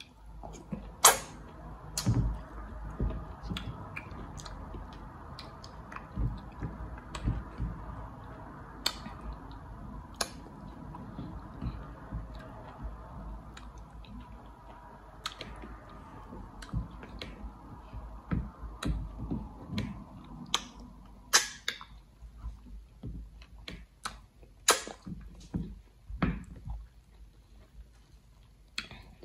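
Close eating sounds from a person eating slimy okra and egusi soup by hand: irregular wet mouth smacks and sticky clicks with low soft thumps. A faint steady background hum stops about two-thirds of the way through.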